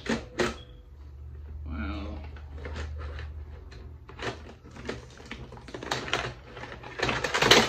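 BB guns clattering and knocking against each other and the cardboard shoebox as they are rummaged through. It is a string of irregular clicks, with a dense, louder clatter near the end.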